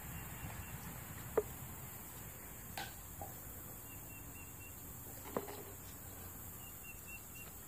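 Quiet outdoor background with faint high chirps in two short runs, and four soft clicks spread through it.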